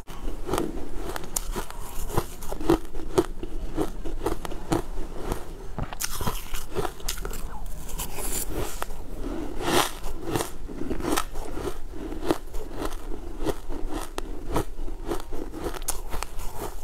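Crushed ice being chewed and crunched close to a lapel microphone: a dense, continuous run of crisp crunches and crackles.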